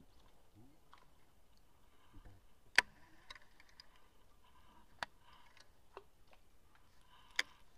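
Fishing rod and baitcasting reel being handled: a few sharp, isolated clicks, the loudest about three seconds in and the others softer and spread out, over a faint quiet background.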